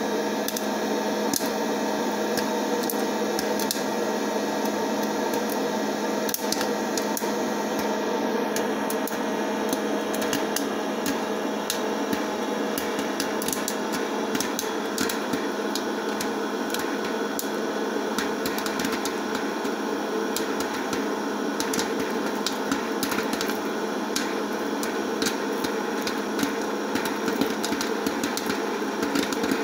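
Electric hot-air popcorn popper's fan running with a steady hum while the kernels inside pop, sharp pops at first scattered, then coming thick and fast from about ten seconds in.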